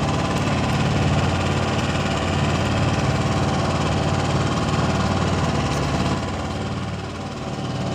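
Engine on a small outrigger fishing boat running steadily at idle, with a low, even throb; it dips a little in level about six seconds in, then picks back up.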